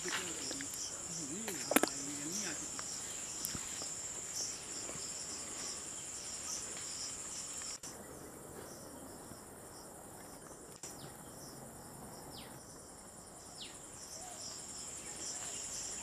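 Insects trilling steadily at a high pitch, with a quick pulsing chirp beneath the steady note. A single sharp click comes about two seconds in, and a few short falling whistles come near the middle.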